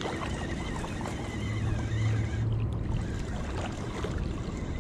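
Wind buffeting the microphone over moving river water, with a low hum swelling in the middle and fading again.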